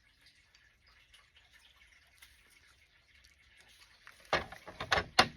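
Metal parts handled and set down on a surface: faint light ticks, then a quick cluster of sharp clacks and knocks about four seconds in as the AR-15 bolt carrier groups are laid side by side.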